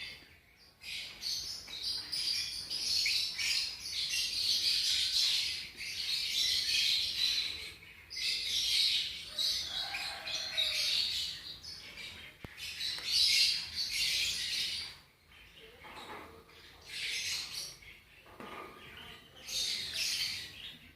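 Lovebirds chattering and chirping in shrill bursts of a few seconds each, with short pauses between.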